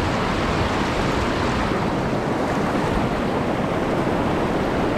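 Fast mountain stream rushing steadily into a turbulent plunge pool.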